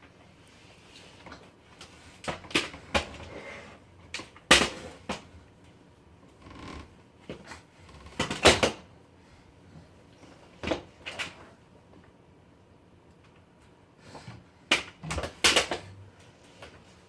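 Irregular knocks and clatters of hard objects being handled and bumped, in a few clusters with quiet gaps between, the loudest about four and a half, eight and a half and fifteen seconds in.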